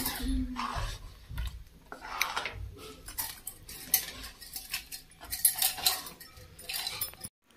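Metal ladle clinking and scraping against a metal kadai of gravy, with scattered knocks, a sharp one right at the start and a cluster of clatter a little after five seconds.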